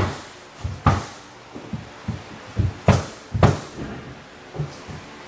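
A series of irregular knocks and thumps: sharp knocks at the start, just before a second in, and twice close together around three seconds, with softer low thuds between.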